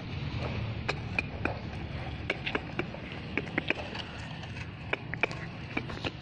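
Hard plastic toy pieces clicking and knocking together as they are picked up and set down on a tiled floor, a dozen or so sharp clicks at uneven intervals over a steady low hum.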